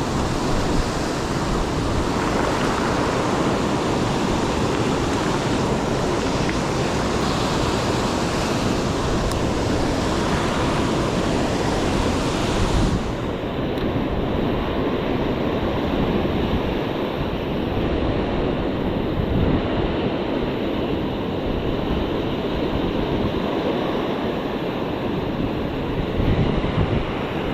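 Ocean surf breaking and washing in along the shore, a steady rush, with some wind on the microphone. About halfway through, the high hiss drops away abruptly.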